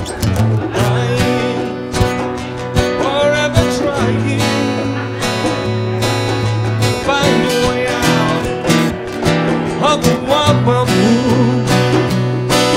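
An acoustic guitar and an electric guitar playing a song together live.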